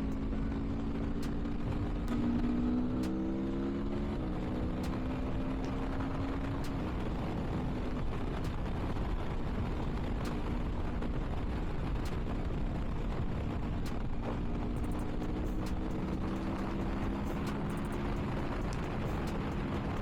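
Aprilia Tuono V4's 1077 cc V4 engine running on the move, its pitch shifting up in the first few seconds and climbing slowly again near the end, under a steady rush of wind noise.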